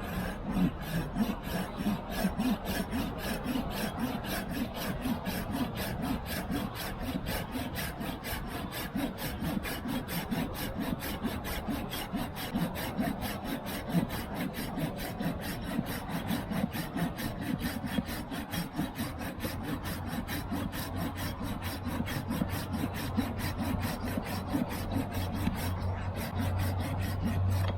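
Silky Pocketboy Outback Edition folding pull saw cutting through a thick piece of tree wood, its blade rasping in rapid, even strokes without a break.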